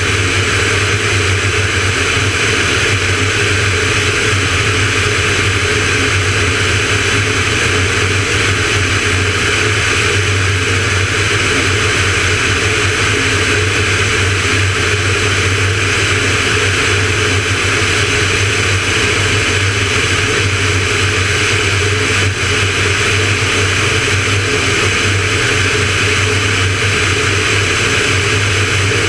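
Van's RV-9A light aircraft's piston engine and propeller droning steadily in flight, a constant low hum under a steady hiss of rushing air, unchanging throughout.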